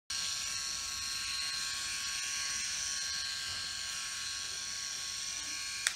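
Enchen BlackStone three-head rotary electric shaver running against the chin, a steady whine from its spinning cutters. It stops suddenly with a click just before the end.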